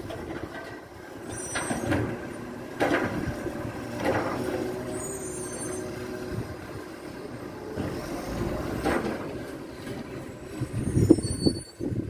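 Side-loader recycling truck at work: its diesel engine runs steadily while its mechanical arm lifts and tips wheelie bins, with several clunks and clatters along the way.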